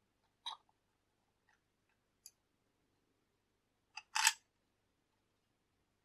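Small plastic and metal coffee-machine parts clicking as they are handled and pulled apart: a few light clicks, then a louder double clack about four seconds in.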